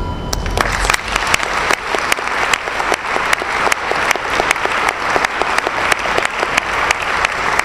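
Audience applauding: many hands clapping at once, a dense steady clatter.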